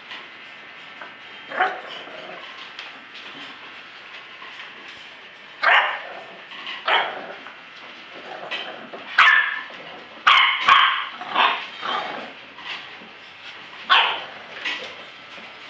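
English bulldog puppies barking and yipping in short, separate bursts as they play, about a dozen of them, coming more often in the second half.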